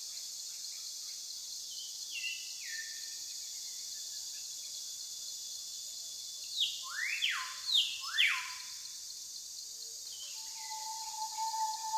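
Forest ambience: a steady high insect hiss, with bird calls sweeping in pitch, a few about two seconds in and a louder run of four rising calls about halfway through.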